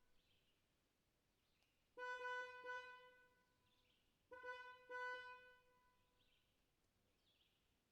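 A bird's honking call, given three times: once about two seconds in, then twice in quick succession a little later. Each call is a steady, nasal, horn-like note.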